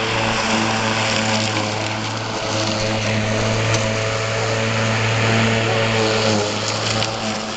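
Robotic lawn mower's small petrol engine running steadily at a constant speed as the mower drives across the lawn.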